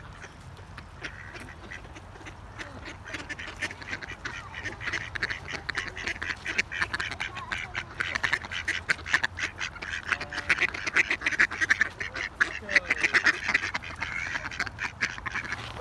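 A flock of mallards quacking, a dense run of quick, overlapping calls that grows louder about three seconds in and stays busy.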